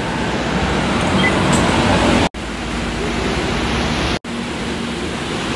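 Steady, fairly loud rushing noise of an MRT rail station, with a faint low hum in the second half. It cuts out abruptly for an instant twice, about two and four seconds in, where the recording is spliced.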